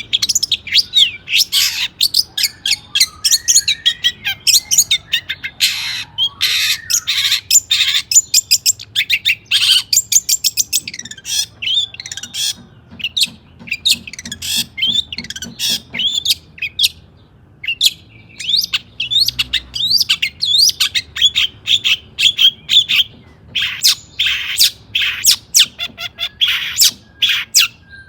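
Long-tailed shrike (cendet) singing a fast, almost unbroken string of sharp chirps, trills and harsh squawking notes, with a short break a little past the middle.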